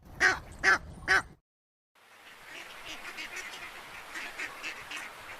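Three loud animal calls, then after a brief gap a flock of ducks quacking continuously.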